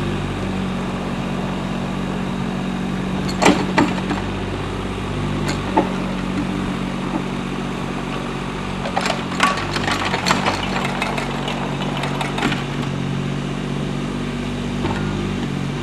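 Mini excavator's engine running steadily while it drags a screeding board across compacted soil to grade it level for turf. Occasional clanks and rattles: once about three and a half seconds in, again near six seconds, and a run of them between about nine and twelve seconds.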